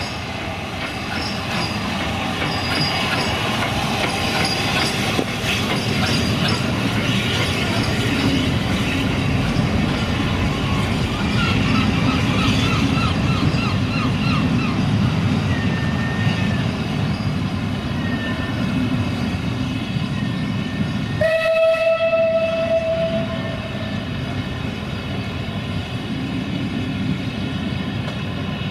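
Steam locomotive No. 131, a 1901 'Q' class 4-4-0, running past with its train of coaches: a steady heavy rumble and the clatter of carriage wheels on the rails. About 21 s in, a single-note whistle sounds for about two seconds.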